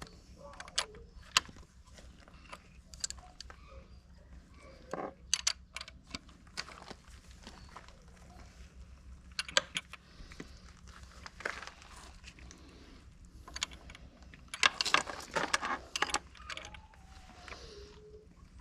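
Metal tools clinking and clicking in scattered bursts while a new spark plug is fitted into a Yamaha 9.9 four-stroke outboard, with a quick run of clicks about fifteen seconds in.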